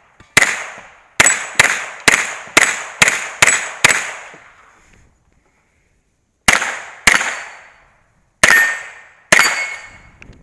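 Gunfire from a pistol-caliber carbine on a steel stage: a rapid string of eight shots in about three and a half seconds, a pause of about two and a half seconds, then four more shots at a slower pace, each crack dying away over about half a second.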